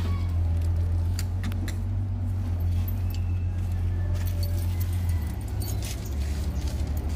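Small metal clinks and scrapes of pliers working on the parts of a rear drum brake's backing plate, over a steady low hum.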